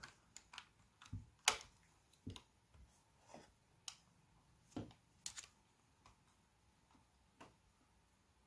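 Faint, irregular clicks and taps of small hard objects being handled, about a dozen separate ticks with no steady sound between them, typical of fumbling with a USB plug at a laptop.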